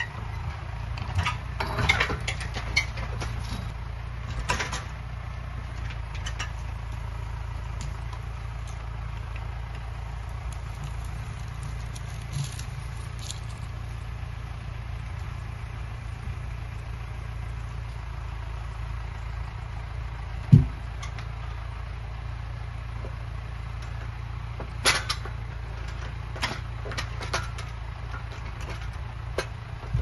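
Tractor diesel engine running steadily at idle while it powers a forestry trailer crane, with scattered clacks and knocks from the grapple and logs. One loud thump comes about twenty seconds in.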